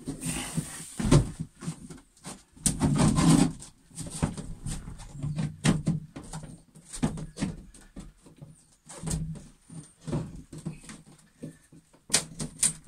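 Hand tool prying and scraping at the edge of a boat's galley floor panel. Irregular knocks, clicks and scrapes follow one another, with short creaking spells in between.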